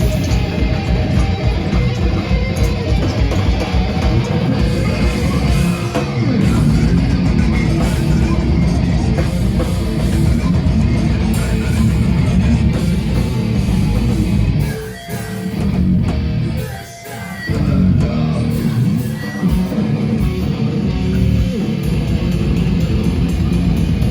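Live heavy rock band playing loud, with electric guitar and bass. The music drops briefly twice, about two-thirds of the way through.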